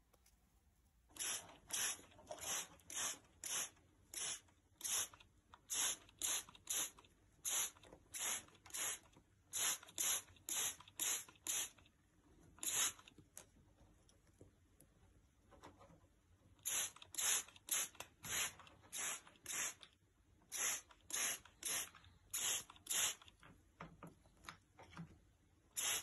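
Hand trigger spray bottle squirted again and again at bathing cockatiels: short hissing sprays, two or three a second, in a long run with a pause of a few seconds in the middle.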